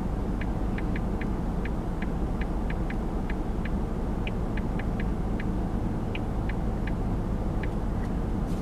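Steady low rumble of a car's engine idling, heard inside the cabin, with light irregular clicks a few times a second.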